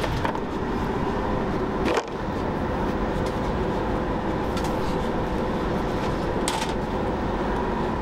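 Steady engine rumble with a constant hum, with an abrupt short dip about two seconds in and a few faint ticks.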